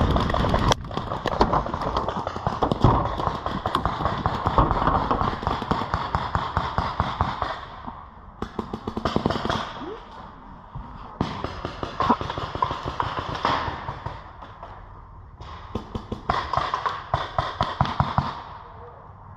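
Paintball markers firing in rapid strings of pops: one long run of shots, then three shorter bursts in the second half.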